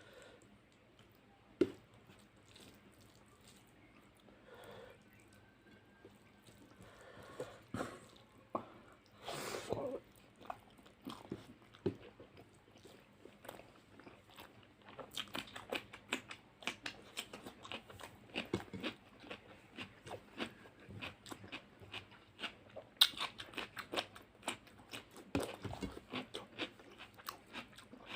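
A person eating fish curry with rice close to the microphone: wet chewing, smacking and crunching. The sounds are sparse in the first half and come thick and fast from about halfway, with one sharp click about two-thirds of the way through.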